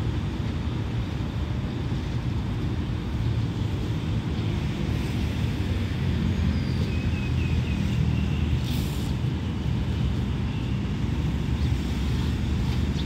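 Steady low rumble of a diesel passenger train's engines idling at the platform.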